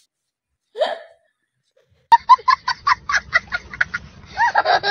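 A young child laughing hard: rapid breathy bursts of about five a second, breaking into longer high-pitched squealing laughs near the end. A short cry from another child comes just under a second in, before a pause.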